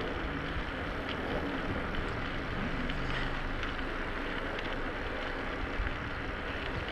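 Steady wind noise on the microphone of a camera carried on a slowly ridden bike, with faint road noise from rolling over pavement and a few light ticks.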